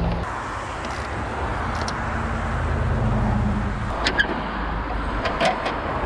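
Steady low hum of a running motor vehicle engine, with a few light clicks and knocks about four and five seconds in.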